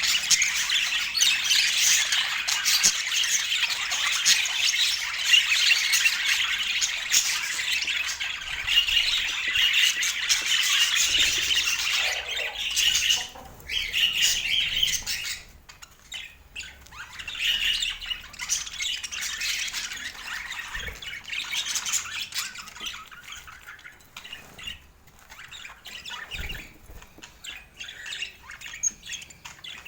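Pet budgerigars chattering, warbling and squawking: a dense, continuous run of fast high-pitched calls for about the first thirteen seconds, then sparser, broken calls with short gaps.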